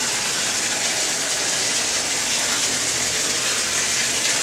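Steady rush of running water, an even hiss with no let-up.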